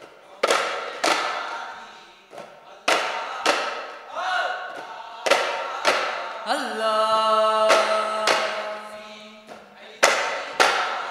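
A group of daf frame drums struck together in unison for duff muttu, in pairs of sharp beats with short pauses between the pairs. A sung vocal line comes in about four seconds in and holds one long note through the middle.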